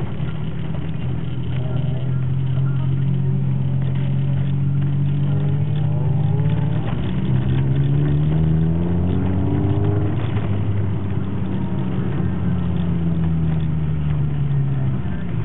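1990s Honda Civic engine heard from inside the cabin while driving, running steadily, then rising in pitch about six seconds in as the car accelerates, dropping back around ten seconds in and settling to a steady cruise before easing off near the end.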